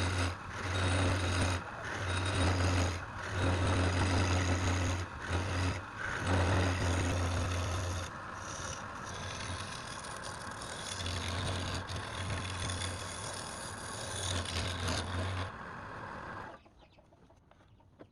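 A workshop machine running with a loud low hum and a wide rushing noise. The hum keeps cutting out briefly and coming back. Everything stops abruptly about sixteen and a half seconds in.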